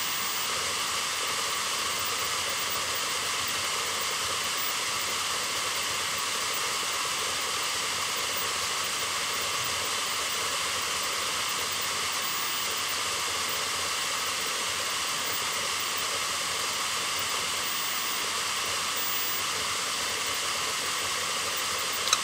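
Opened Samsung Spinpoint F3 EcoGreen HD203WI 5400 rpm hard drive spinning: a steady hiss of air from the exposed platters with several steady high tones from the spindle motor. A sharp click comes at the very end.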